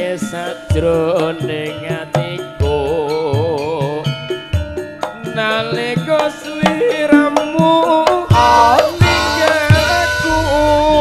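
Live Javanese gamelan music accompanying a ledek dance, heard through a PA: kendang drum strokes over gongs and metallophones, with a wavering, heavily vibrated vocal line.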